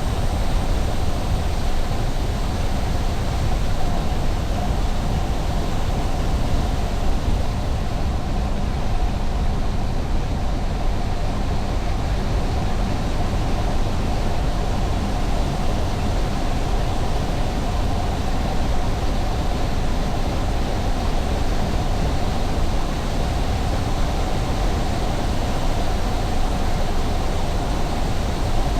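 Car driving steadily at highway speed: constant tyre and road rumble with a steady hum, no change in speed.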